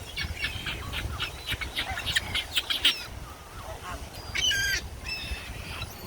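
Several birds calling. A rapid flurry of short, sharp calls is followed, about four and a half seconds in, by a longer call with several tones, then a few scattered calls.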